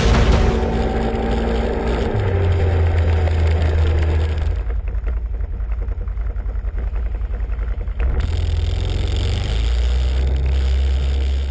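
Quad bike (ATV) engine running, heard from a camera mounted on the machine: a steady low drone that eases off for a few seconds in the middle, going quieter with an even pulsing beat, then picks up again.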